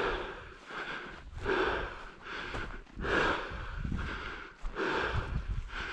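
A person breathing hard and evenly, in and out in a steady rhythm.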